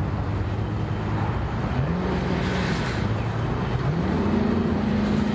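A motor engine running steadily and revving up twice: briefly about two seconds in, then held at a higher pitch from about four seconds in before starting to drop back.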